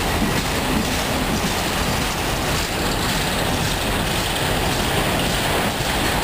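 Freight train passing close by: a CSX diesel locomotive and then autorack cars rolling past, with a steady rumble and the clatter of wheels on the rails.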